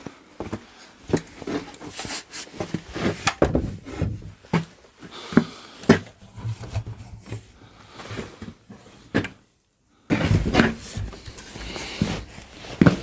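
Irregular knocks, clicks and clatter of things being handled and moved about in a small room. The sound cuts out for under a second about nine seconds in, then resumes.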